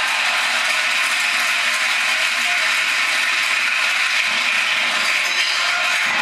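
Steady, dense din of a basketball crowd in a sports hall, with no single sound standing out. It sounds thin, with little bass.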